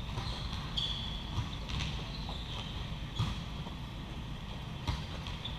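Volleyball rally: several sharp smacks of hands and arms hitting the ball, spread a second or more apart, with short high squeaks of sneakers on the sport-court floor.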